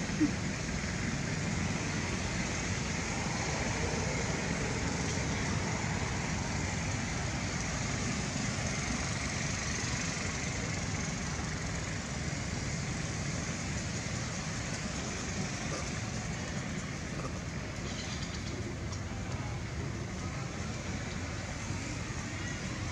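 Steady outdoor ambient noise, a low rumble with a hiss above it, with one short click just after the start.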